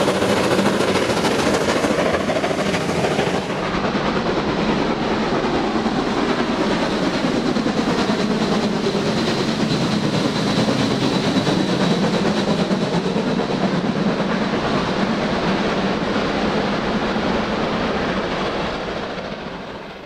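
Steam locomotive hauling a special train past at speed: steady running noise of the engine working, with the clatter of the coaches' wheels over the rails, fading out near the end.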